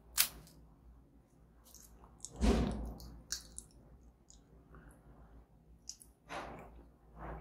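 Snack packaging being handled and opened: scattered sharp clicks and crackles, with a louder rustling crinkle about two and a half seconds in and two more near the end.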